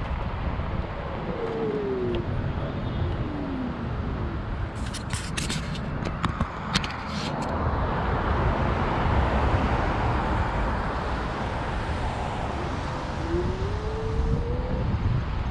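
Wind rumbling on the microphone with road traffic passing, from a ride along a roadside sidewalk. A burst of sharp clicks and rattles comes about five to seven seconds in, and a faint whine falls in pitch early on and rises again near the end.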